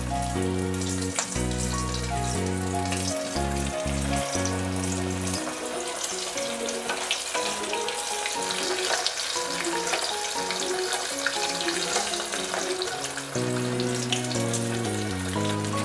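Breaded paneer pakoras deep-frying in hot vegetable oil, fizzing and crackling steadily, over background music with a stepping bass line that drops out for several seconds in the middle.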